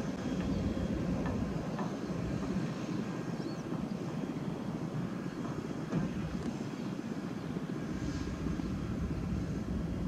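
Diesel engines of heavy construction machinery (drilling rig, excavators and a concrete mixer truck) running steadily, a low engine drone with one light knock about six seconds in.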